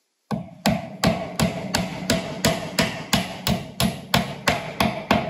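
Hand hammer striking in a steady, even rhythm, about three sharp blows a second, starting a third of a second in after dead silence.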